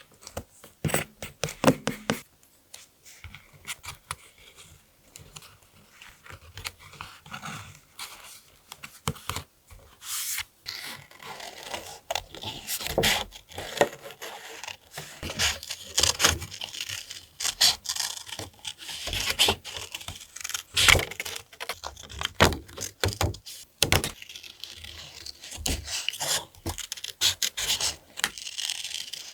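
Close-miked paper and craft materials being handled: rustling, rubbing and scraping, with frequent short taps and clicks.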